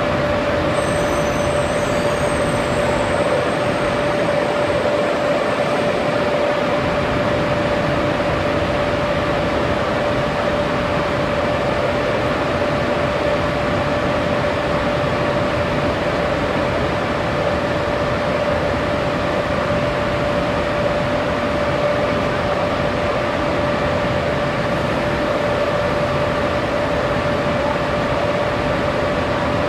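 SNCB class 13 electric locomotive standing at the head of its train, its cooling blowers and auxiliaries running with a steady noise and a steady mid-pitched whine.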